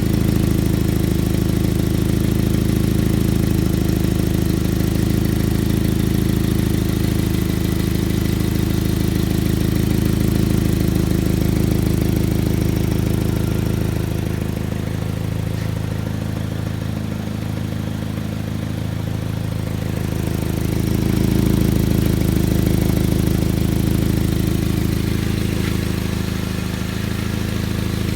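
Vehicle engine idling steadily with an exhaust leak. The sound turns quieter and duller for a few seconds about halfway through, then comes back up.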